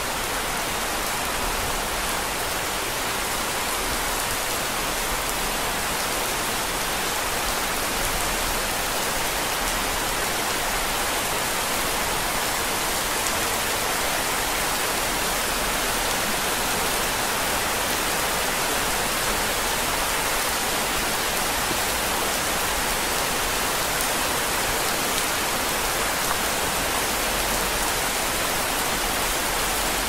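Steady rain falling, an even hiss that holds the same level throughout with no single drops or gusts standing out.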